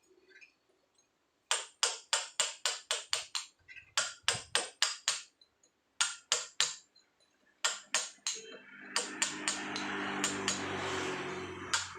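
Hand hammer driving a steel chisel into soft paras stone: quick runs of sharp taps at about five a second, broken by short pauses. A low rushing hum swells in the background for a few seconds in the second half.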